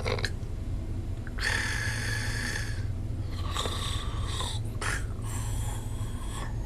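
A man snoring in his sleep: one long snore starting about a second and a half in, then a few shorter snores, over a steady low hum.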